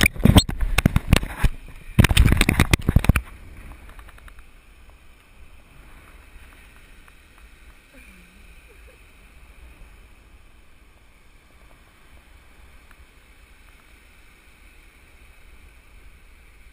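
Two bursts of loud rumbling buffeting on a body-worn GoPro Hero2's microphone in the first three seconds. After them only a faint steady hiss remains.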